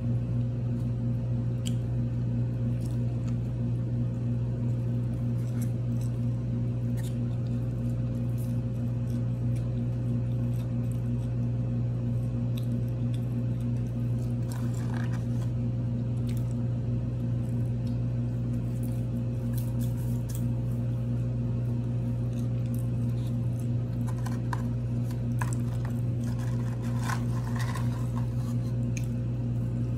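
A steady low hum, with soft scattered clicks, crinkles and mouth sounds of someone eating a sandwich and handling paper food packaging, more of them in the second half.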